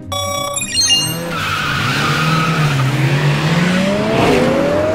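Cartoon race-car sound effects: tyres screeching as the cars launch about a second in, then engines revving with a rising pitch as they speed up.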